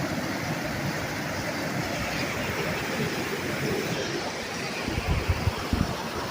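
Waterfall rushing steadily, with a few short low thumps near the end.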